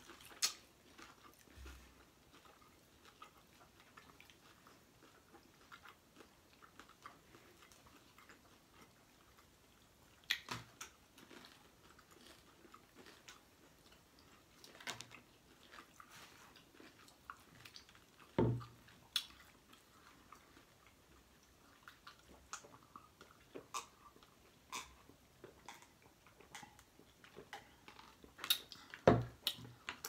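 Close-miked chewing of crunchy hard taco shells, with scattered wet mouth clicks and crackles. A few louder short crunches or bumps stand out, the loudest near the end.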